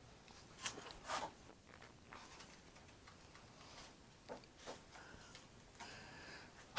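Faint scraping and rustling of a spatula and cardboard being handled, a few short strokes about a second in and two more around four to five seconds.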